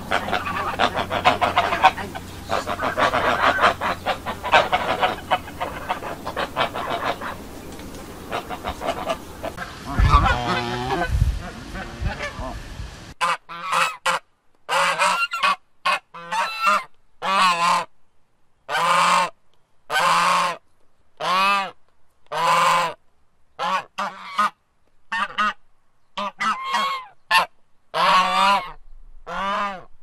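Domestic geese honking. First several call over one another against background noise; then, after a cut about thirteen seconds in, come clean, separate loud honks, roughly one a second, with short silences between them.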